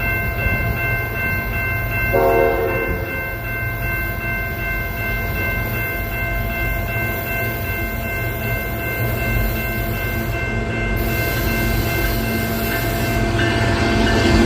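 CN freight train passing with a steady rumble and several steady high-pitched tones throughout. There is a short pitched sound about two seconds in, and the train gets louder near the end.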